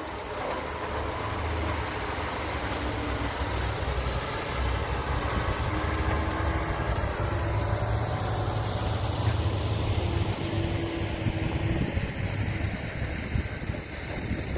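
Diesel engine of a heavy earthmoving machine running, a low steady rumble that grows louder about four seconds in.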